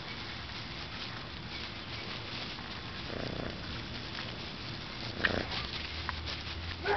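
Dachshund puppy making small grunting and whimpering noises while nosing about in the grass. There is a short grunt about three seconds in, a sharper sound about five seconds in, and a brief whimper at the end.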